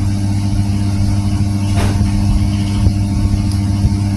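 A steady low motor-like hum that does not change, with a brief soft rustle about two seconds in.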